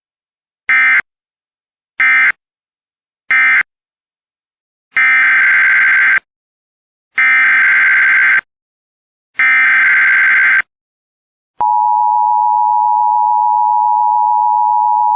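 Emergency Alert System digital data bursts: three short squawks (the end-of-message code closing one warning), then three longer header squawks about a second apart opening the next warning. Near the end a steady attention tone begins and holds.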